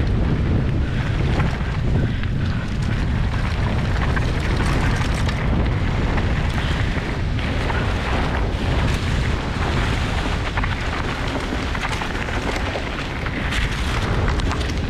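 Wind rumbling on a helmet camera's microphone as a mountain bike descends fast over a forest dirt singletrack, with the tyres rolling and the bike rattling. Several sharp clicks and knocks come near the end.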